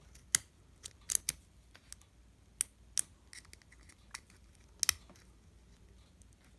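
Steel lock picks, a shallow hook with a wire tension tool, clicking and scraping inside a rusted padlock as its pins are picked. The clicks are irregular and sharp.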